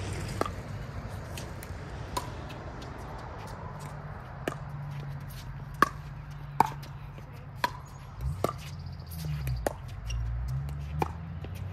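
Pickleball rally: hard paddles striking a plastic pickleball with sharp, hollow pocks, about one a second at an irregular pace, some hits louder than others.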